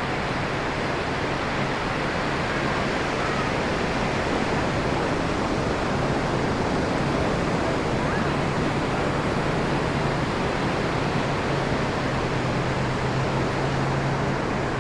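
Ocean surf washing ashore in a continuous rush. A low steady hum comes in more strongly from about six seconds in.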